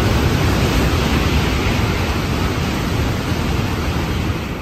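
Tokaido Shinkansen train passing through a station at high speed without stopping: a loud, steady rush that eases off a little toward the end as the rear of the train goes by.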